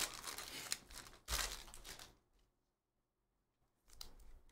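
Foil trading-card pack wrapper crinkling and tearing open, with one louder tear about a second in. Near the end comes a brief rustle as the cards slide out.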